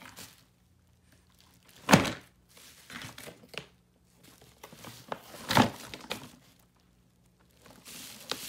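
Plastic toy tool bench parts knocking against a cardboard box as a capuchin monkey pulls them out: two loud thunks, about two seconds in and again a few seconds later, with bubble wrap and packaging crinkling in between.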